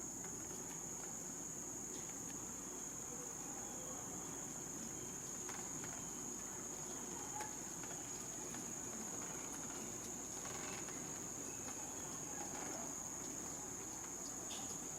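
Steady, high-pitched chorus of insects, one unbroken trill throughout, with a few faint ticks and rustles.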